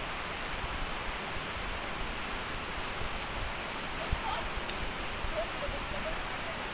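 Steady rushing of a waterfall. Faint voices come in about four seconds in, along with a single short knock.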